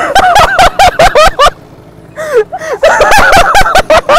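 A man laughing hard in rapid ha-ha bursts. The laughter breaks off briefly about a second and a half in, then starts up again.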